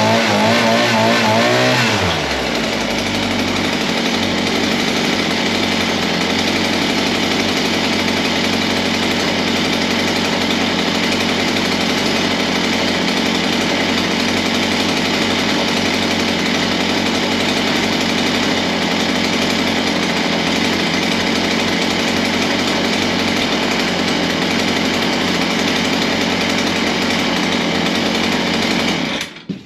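Brand-new VEVOR 43cc two-stroke mini tiller engine running with the choke off. It is revved up and down for the first couple of seconds, then runs steadily, and cuts off suddenly near the end.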